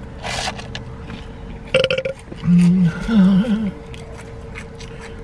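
A man belches loudly, a long low burp in two parts about two and a half seconds in, soon after taking a drink from a cup.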